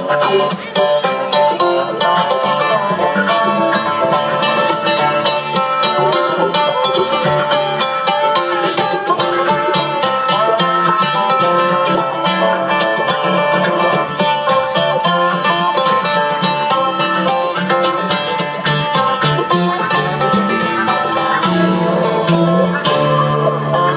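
Bluegrass string band playing live, with banjo, fiddle, acoustic guitar, resonator guitar (dobro) and upright bass in a dense, steady instrumental passage of fast picking.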